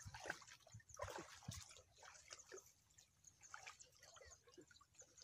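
Faint splashing and trickling of water as people wade chest-deep in muddy water handling a fishing net, a little louder in the first two seconds.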